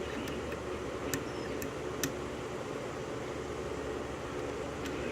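Steady background hum with a few faint, sharp clicks of a lock pick working the pins of a six-pin Schlage lock cylinder.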